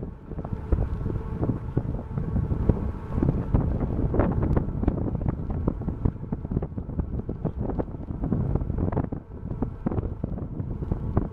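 Wind buffeting the microphone in gusts, over a faint steady hum from the MS Artania cruise ship under way close by.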